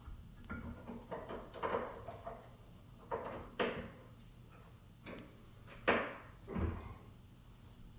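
A series of knocks and scrapes from a steel pipe wrench being handled and fitted onto a shotgun's rusted-in magazine tube, with the sharpest knock about six seconds in.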